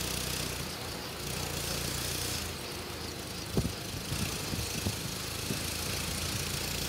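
Engine of a homemade open-frame helicopter running steadily with a low, even hum while its rotor turns slowly. A few sharp clicks and rattles come through around the middle.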